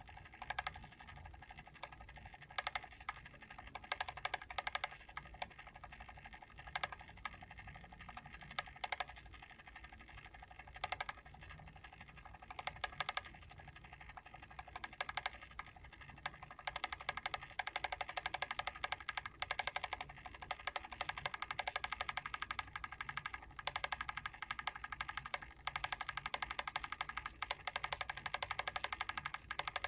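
Mechanical timer ticking rapidly, with sharper, louder clicks on top; the louder clicks become more frequent from a little past halfway.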